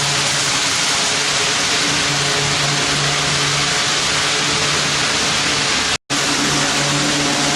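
HO-scale model train running on the layout: a steady rushing hiss of wheels and motor, with a low engine hum that fades in and out. The sound cuts out for an instant about six seconds in.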